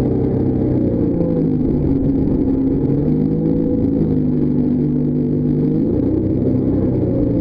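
Jetboat engine running hard under way, its pitch dipping and rising a few times as the throttle is eased and opened again.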